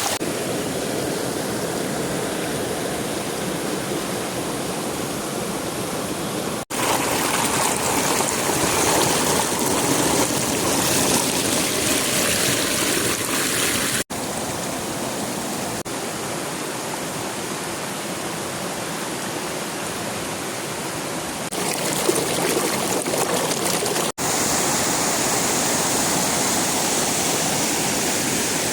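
Running water of a mountain stream rushing and splashing over rocks, a steady, full rush. It drops out sharply three times for a split second, and the rush changes slightly in character after each break.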